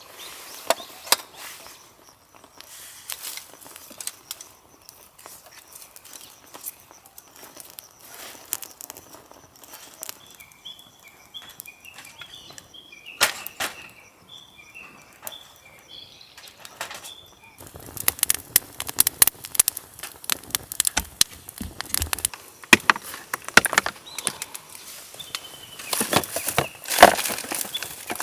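Rustling and clicking of camp gear being handled. A small bird sings a short chirping phrase over and over for several seconds midway. In the second half the knocks and rustles come thicker, with a few deeper thuds.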